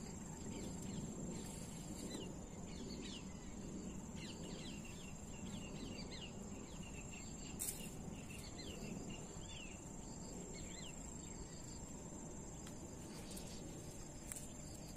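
A steady high-pitched insect trill over a low outdoor hum, with many short bird chirps through the middle and a few faint clicks.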